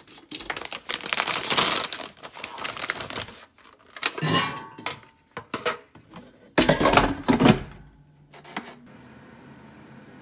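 A plastic snack bag is crinkled and torn open and handled against a plastic tray, with several sharp clicks and clatters. Near the end, a kitchen appliance starts and runs with a steady hum.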